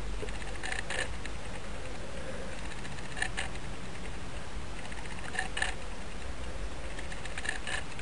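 Steady low hum and hiss with faint light ticks, mostly in pairs about every two seconds.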